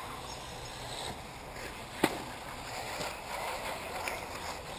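Steady outdoor background noise with one sharp knock about two seconds in.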